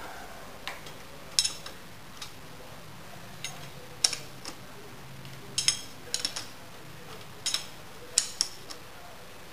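Sharp metallic clicks and clinks of a hand wrench working the clamp bolts on a vertical milling machine's head. They come in short groups of two to four, every second or two, while the head is loosened to be tilted over.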